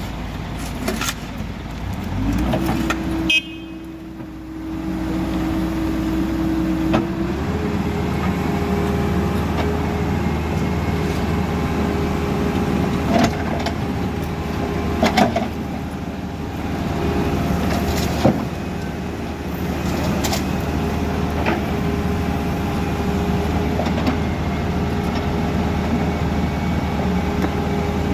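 Caterpillar backhoe loader's engine running steadily, with a held whine that steps up in pitch about seven seconds in and a few sharp knocks in the second half.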